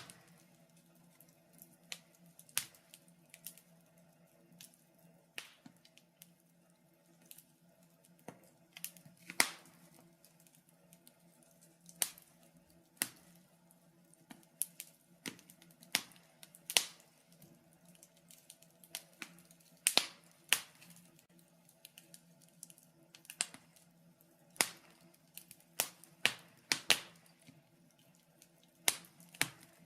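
Wood fire crackling in a fireplace: irregular sharp pops and snaps at uneven intervals, over a faint steady low hum.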